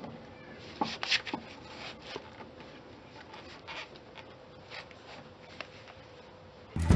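Lug nuts being spun onto wheel studs by hand: scattered light metallic clicks and scrapes, with a few sharper clicks about a second in. Background music cuts in at the very end.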